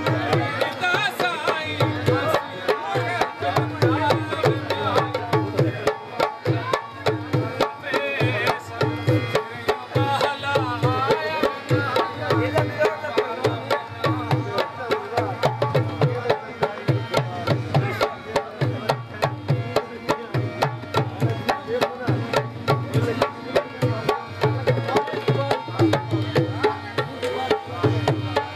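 Punjabi-Saraiki folk dance music: hand drums of the tabla kind keep a steady, fast beat under a wavering melody line.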